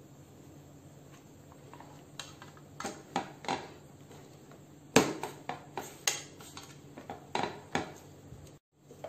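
Plastic lid being pressed and snapped onto a round plastic food container to seal it airtight: a series of sharp plastic clicks and knocks, the loudest about five seconds in.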